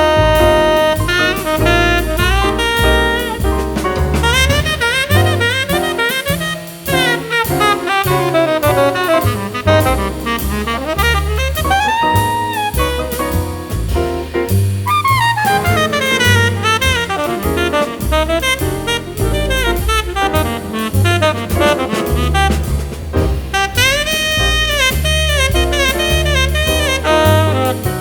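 Background jazz music with saxophone lead over bass and drums.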